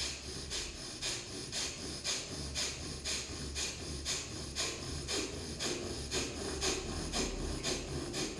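Rapid, forceful in-and-out breathing through the left nostril alone, the right nostril held closed: single-nostril bhastrika pranayama. It is an even, rhythmic sniffing hiss at about two strokes a second.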